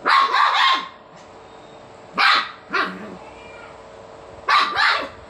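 Dog barking in short bursts during play: a quick run of three barks at the start, two single barks a couple of seconds in, and two more near the end.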